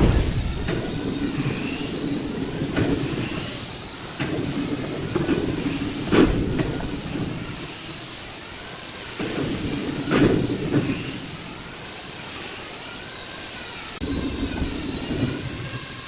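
A machine running in bursts of a few seconds each, its pitch rising and falling, with sharp knocks at the start, about six seconds in and about ten seconds in.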